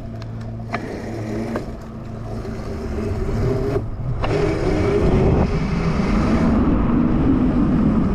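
Converted Razor RSF650 electric dirt bike (72 V Electro & Co kit, chain drive) being ridden on pavement: motor and drivetrain whine with tyre rumble, getting louder as it picks up speed about halfway through. Wind rushes over the microphone for a couple of seconds.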